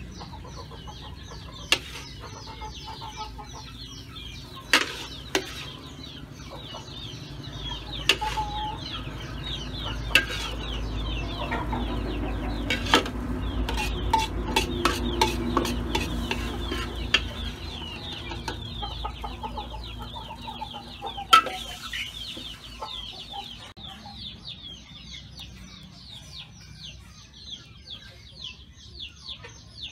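Metal spatula scraping and scooping around a steel wok as scrambled egg and vegetables are cleared onto a plate, with sharp clanks of the spatula against the pan. The scraping is loudest in the middle and dies away near the end.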